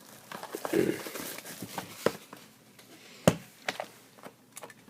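A trading-card box and its packs being handled: paper and cardboard rustling around the first second, then scattered sharp clicks and taps, the loudest about three seconds in.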